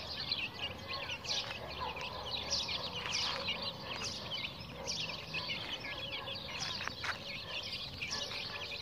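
A brood of young chicks peeping: many short, high chirps overlapping one another without a break, with a single sharp click about seven seconds in.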